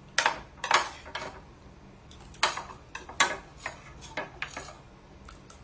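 Cutlery clinking and scraping against a plate in about a dozen short, sharp, irregular strokes, as a plate of beans is scraped clean.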